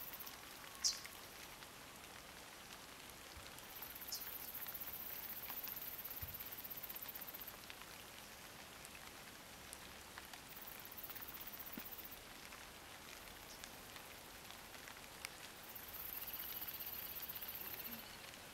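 Faint, irregular crunching and ticking of a cat chewing a fish on grass, with one sharper click about a second in. A very high, fine buzz comes and goes in several bouts of one to four seconds.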